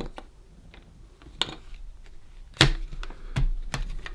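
Scattered sharp clicks and knocks of hands and a small screwdriver working on the plastic case of an electronic thesaurus while its back screws are undone, the loudest knock about two and a half seconds in.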